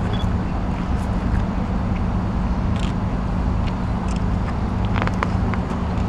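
Steady low rumble of city background noise, most likely traffic, with a constant low hum under it. A few faint clicks come about five seconds in.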